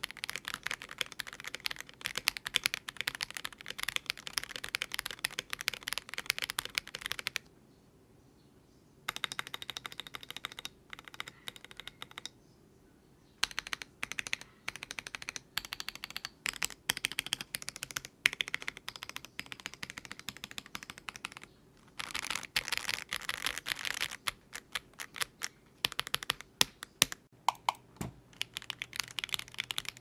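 Typing on an Akko ACR Pro Alice Plus mechanical keyboard with Akko Crystal switches, an aluminium plate, case foam and stock ASA keycaps: fast runs of key clacks broken by two short pauses, with stretches of single, separate key presses. The plate foam is taken out for the last few seconds.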